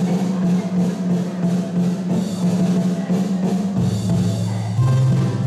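Live folk band music on piano accordion, electronic keyboard and a hand drum, over a strong bass line that moves to lower notes about four seconds in.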